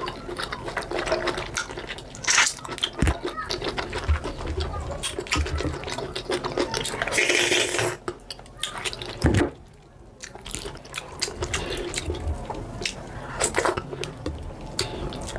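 Close-miked wet eating sounds of fufu with soup: sticky, squelching chewing and mouth noises made of many quick wet clicks. There is a brief lull a little past halfway.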